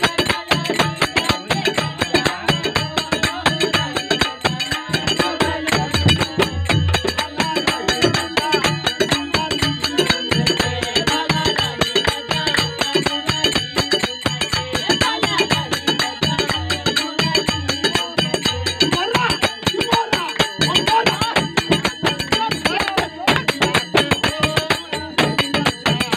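Live Bhojpuri phagua (Holi folk song) music in a fast, steady rhythm: a harmonium carrying the melody, a dholak drum, and small brass hand cymbals (jhal) clashing on every beat.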